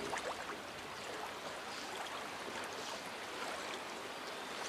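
River water running steadily, with a few faint ticks.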